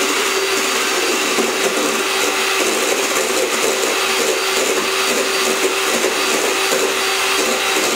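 Electric hand mixer running steadily with a constant motor hum, its beaters whipping egg whites into meringue in a stainless steel bowl.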